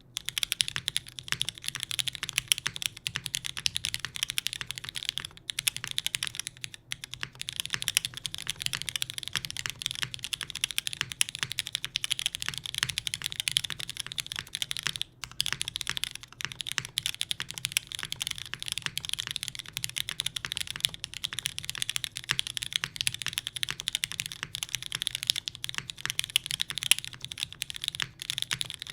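Continuous fast typing on a TGR Jane v2 mechanical keyboard with West German vintage Cherry MX Black linear switches on a carbon fiber plate and GMK doubleshot keycaps: a dense stream of key clacks with occasional spacebar strokes.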